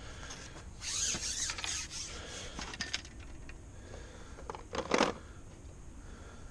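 Rustling and handling noises of fishing tackle at a seat box, with a few clicks and one sharper knock about five seconds in.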